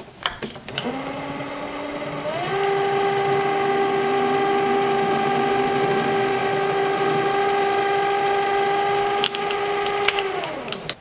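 Small metal lathe spinning up, its motor whine rising in pitch over the first couple of seconds and then holding steady while a center drill cuts into a spinning brass rod; the whine drops in pitch and dies away near the end as the lathe is stopped.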